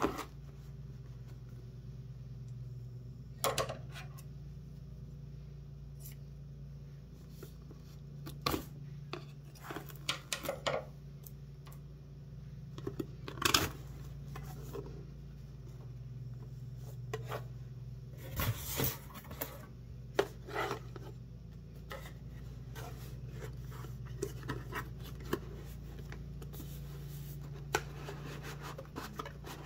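Product packaging being handled and opened: scattered scrapes, rustles and clicks, with a few sharper knocks in the middle, over a steady low hum.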